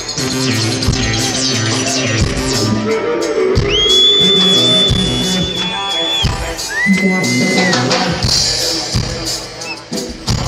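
Amplified live band playing: electric guitar, bass, drum kit and congas with steady drum beats. About four seconds in, a long, high, steady note starts with a quick upward slide and holds for a couple of seconds, followed by a shorter, lower held note.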